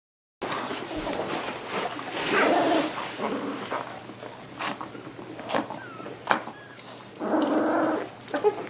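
Young American water spaniel puppies whimpering and crying, with two longer cries about two and a half and seven and a half seconds in and short squeaks between them.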